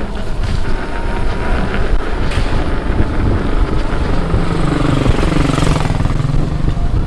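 Begode RS electric unicycle riding over rough, broken pavement: steady wind noise on the microphone and tyre rumble, with a low hum wavering in pitch in the second half.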